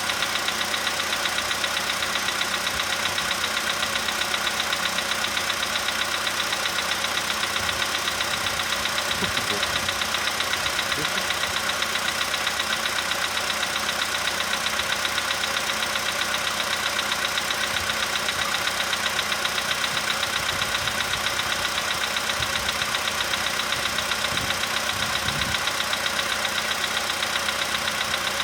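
Volkswagen Polo sedan engine idling while still warming up from a cold start, with a steady rapid knock in time with the engine. The owner takes it for a cold-only knock and guesses a hydraulic lifter.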